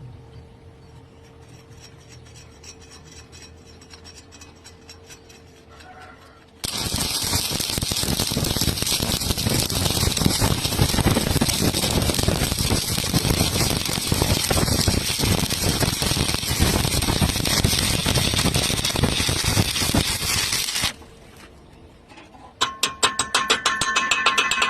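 Stick-welding arc crackling steadily for about fourteen seconds, starting and stopping abruptly, as a root pass is run. Music with plucked-string tones comes in near the end.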